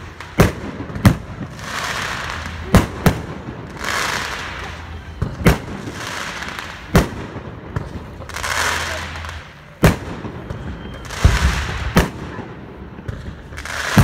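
Firework display: about ten sharp bangs of shells bursting, one every second or two, with a rushing hiss between them.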